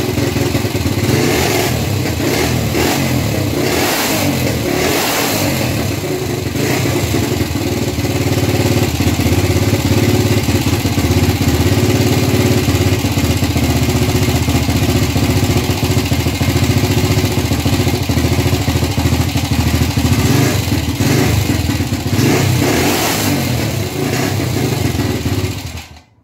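Gilera 150 Super Sport single-cylinder engine, running on a Honda AX 100 carburettor with its points timing just advanced. It runs loud, with a few quick throttle blips in the first seconds, and the owner finds it responsive and not flooded. Near the end it dies abruptly: a loosened breaker-plate screw let the plate touch the contact points and stop it.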